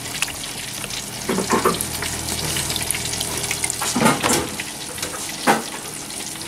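Hot oil sizzling steadily as a battered whole onion deep-fries. Brief knocks or clatters break in about a second and a half in, near four seconds and near five and a half seconds.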